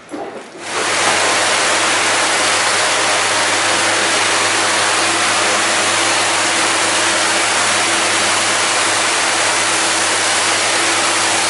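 Pressure washer running: a loud, steady hiss of high-pressure water spray with a steady low hum from its motor underneath. It starts abruptly about half a second in.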